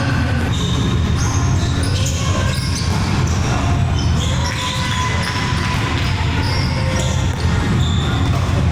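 Indoor volleyball being played in a gym hall: many short high squeaks from sneakers on the court, over a steady low rumble of the hall.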